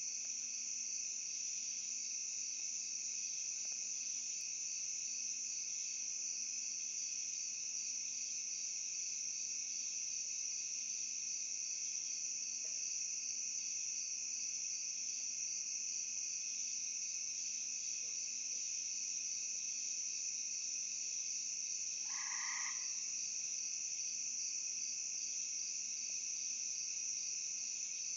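Night insect chorus: crickets trilling steadily and high-pitched. About three-quarters of the way through, one short, lower call cuts in briefly.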